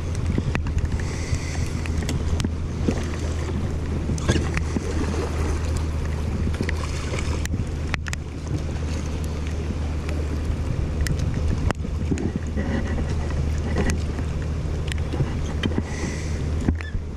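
River current washing around an inflatable raft, with wind buffeting the microphone as a steady low rumble. A few scattered knocks sound now and then.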